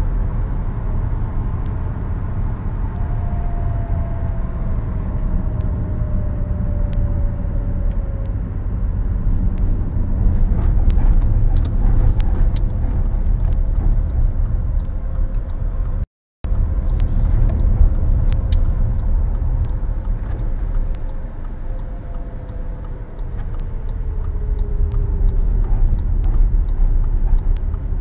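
Steady low rumble of a car's engine and tyres heard from inside the moving car, with a faint whine that slides down in pitch twice, a few seconds in and again near the end. The sound cuts out for a moment just past the middle.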